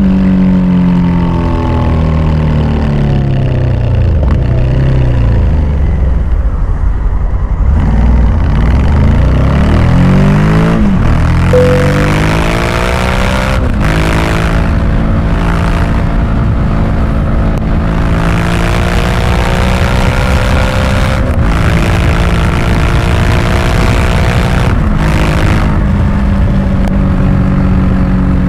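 Honda Africa Twin Adventure Sports' 1084 cc parallel-twin engine heard from the rider's seat: revs fall as the bike slows, with a rev-matched downshift, then the engine pulls hard with revs rising through several upshifts. Wind rush builds as the speed climbs.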